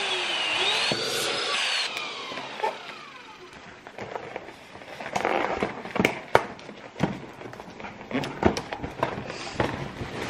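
Electric dual-nozzle balloon pump running as it inflates two balloons. Its whine slides down and then back up in pitch, and it stops about two seconds in. After that, latex balloons squeak and rub with scattered clicks as they are twisted together into a cluster.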